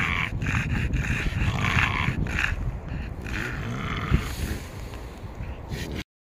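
French bulldog breathing hard in short, repeated huffs, over a steady low rumble. The sound cuts off abruptly near the end.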